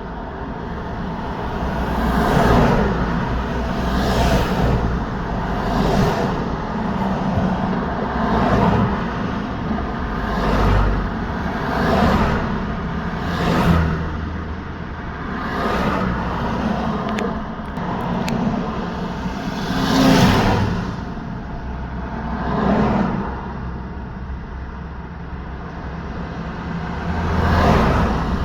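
Steady road traffic, with vehicles passing one after another, about eleven in all. Each one swells and fades as a whoosh of tyres and engine over a constant low rumble.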